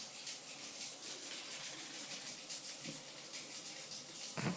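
Quiet room with a steady faint hiss, broken by one short faint sound near the end.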